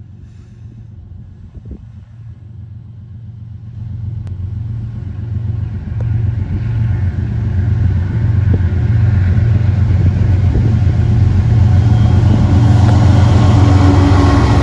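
Diesel locomotives of a CSX freight train approaching and drawing alongside, their engines a low steady drone that grows steadily louder until they pass close by near the end.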